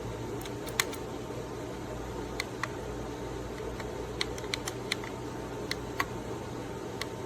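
More than a dozen sharp clicks at irregular intervals, some in quick runs, over a steady hum.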